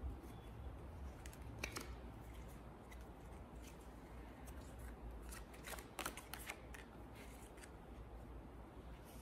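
Playing cards being handled on a felt close-up mat: faint flicks and snaps of the cards, a few about a second and a half in and a quick cluster around five to six and a half seconds, over a low steady room hum.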